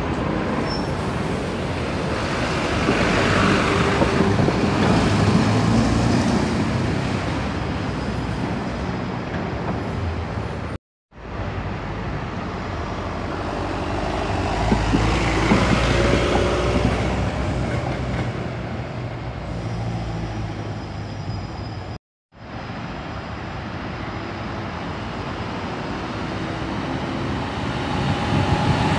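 City buses' engines running as they pull away, turn and draw in, with surrounding traffic noise. The sound swells as a bus passes, breaks off briefly twice, and rises again near the end as more buses approach.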